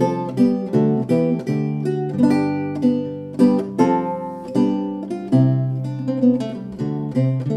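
Renaissance lute played solo: an allemande of plucked chords and single-note lines over low bass strings, each note ringing and decaying.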